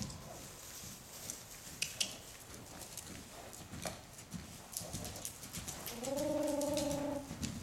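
Hoofbeats of a Hanoverian mare moving loose over sand arena footing. About six seconds in, a single drawn-out, slightly wavering call lasts just over a second and is the loudest sound.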